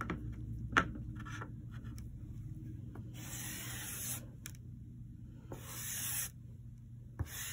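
Chalk pastel scratching across construction paper in several separate strokes, with a sharp tick a little under a second in.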